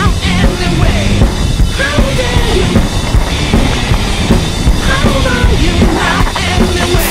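Loud rock music with a driving drum kit.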